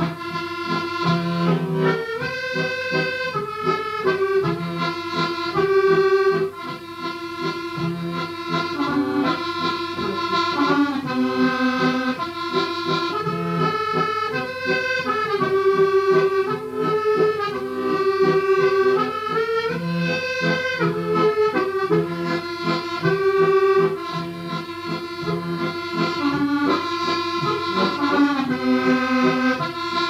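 Accordion playing a traditional tune from a medley: a held melody moving note to note over a steady rhythm of short repeated chords.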